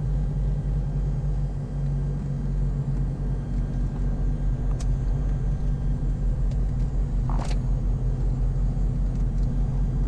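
The twin piston engines of a 1980 Piper Navajo Panther conversion run at low power with a steady, low drone and a regular throb. A brief high-pitched squeak comes about seven seconds in.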